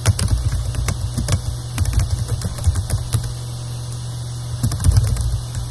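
Typing on a computer keyboard: irregular runs of keystroke clicks as a line of code is entered, over a steady low hum.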